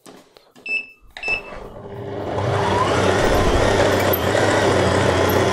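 Tilt-head stand mixer: two light clicks, then about two seconds in the motor starts and rises to a steady hum as the dough hook kneads a wet pizza dough in the steel bowl.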